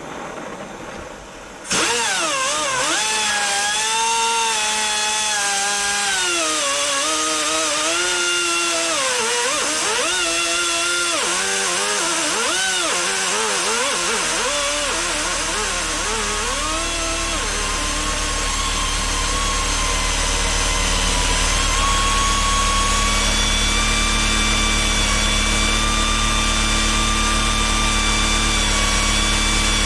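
Small pneumatic angle grinder spinning up suddenly and running free with a whine. For the first half its pitch wavers up and down, then it settles into a steadier, slightly higher whine. It has marked bearing play and 'don't sound healthy'. A low steady rumble joins about halfway through.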